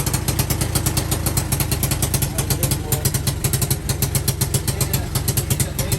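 Small four-wheeler (ATV) engine running steadily, with a rapid, even beat of firing pulses.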